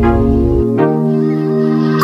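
Background music: sustained instrumental chords, with a change of chord about two-thirds of the way through.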